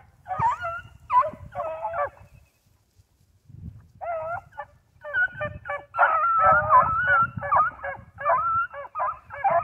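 A pack of hound puppies barking and baying together as they run a trail. There is a brief lull about three seconds in, then the chorus builds and goes on without a break for the last few seconds.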